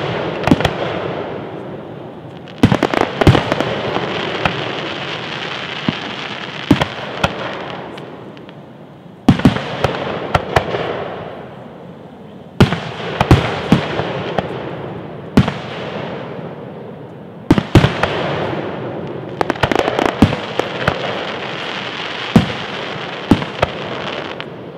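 Aerial fireworks shells bursting: a sharp bang every few seconds, each followed by several seconds of dense crackling that slowly fades, with scattered smaller pops in between.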